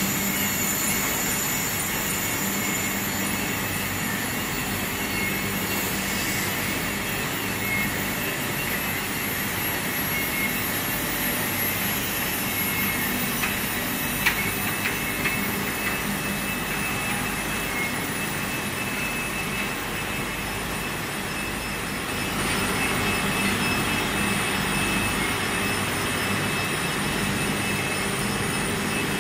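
Continuous textile padding and dyeing range running: a steady industrial din of motors, blowers and drying cylinders, with a constant hum and a high whine. A few light clicks come about halfway through, and the noise grows a little louder about three quarters of the way in.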